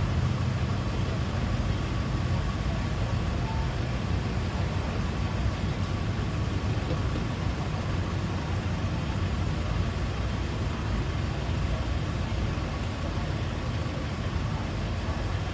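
Steady low rumble of road traffic, with no single vehicle passing loudly.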